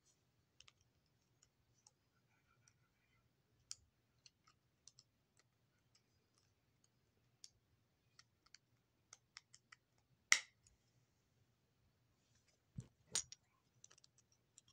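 Faint, irregular clicks of plastic Lego bricks being handled, with a sharper click about ten seconds in and two more close together near the end.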